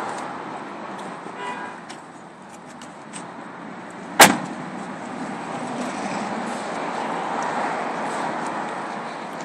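A car door, the Cadillac XLR's, shut once with a sharp thump about four seconds in, over a steady background of outdoor traffic noise.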